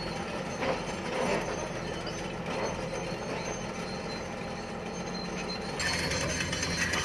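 Heavy construction machinery running with a steady mechanical clatter: the diesel engine and hydraulics of a tracked excavator fitted with a hydraulic rock breaker. It gets louder and brighter about six seconds in.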